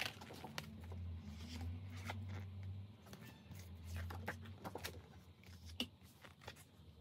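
Pages of a spiral-bound paper wall calendar being turned by hand: soft paper rustling and light ticks, with a page flip near the start and another about four seconds in.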